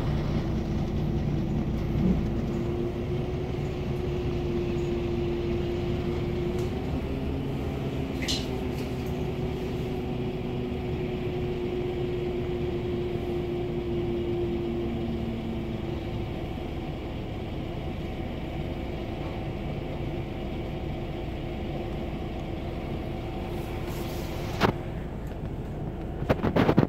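Steady engine hum heard inside a city bus cabin while it waits in traffic, with a faint click about eight seconds in and a sharper one near the end.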